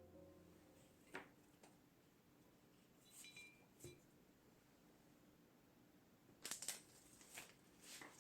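Near-quiet room with faint handling noises: a few light clicks and a brief clink, then a quick run of sharper clicks about six and a half seconds in.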